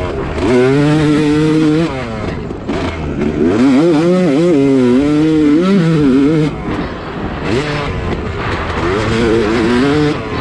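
Yamaha YZ250 single-cylinder two-stroke dirt bike engine under hard throttle, heard from the rider's helmet. There are three long bursts of revving, the pitch climbing and wavering, and the engine drops off briefly between them as the throttle is rolled off.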